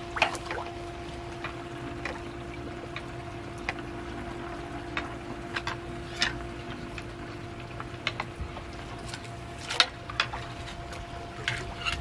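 Pond water sloshing and splashing irregularly as a long-handled pole is worked around a clogged pond pump to clear out the gunk, over a steady hum.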